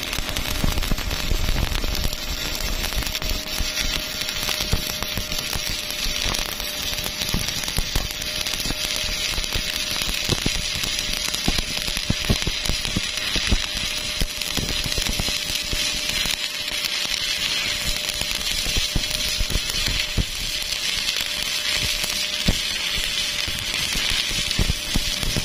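Stick welding arc crackling and sputtering steadily, a dense stream of sharp pops and hiss.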